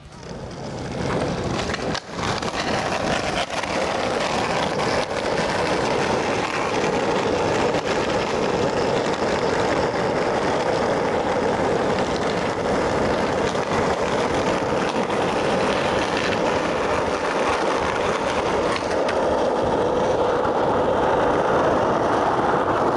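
Skateboard doing a long 50-50 grind along a concrete curb: a continuous rough scraping roar of the metal trucks on the curb edge, mixed with wheels rolling on asphalt. It builds over the first second and then holds steady.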